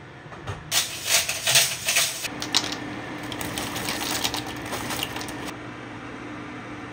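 Dry penne pasta poured from a crinkly plastic bag into a pot: the bag rustles and the hard pieces clatter, starting about a second in and stopping abruptly about five seconds later, over a steady low hum.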